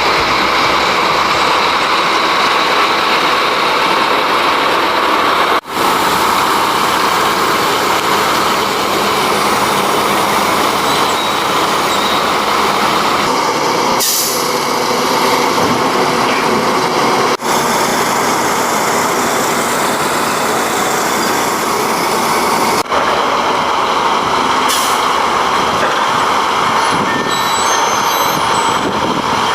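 Heavy diesel construction machinery running at work: a loud, steady mechanical roar broken by sudden cuts between clips about 6, 17 and 23 seconds in.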